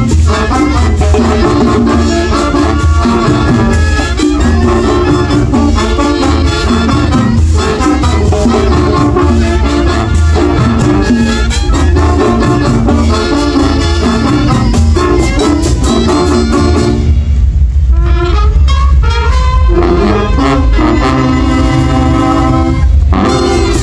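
Brass band playing Latin-style music: trumpets and other brass over a loud, steady drum beat. About three-quarters of the way through, the cymbals and percussion thin out, leaving held brass chords, and the full band comes back in just before the end.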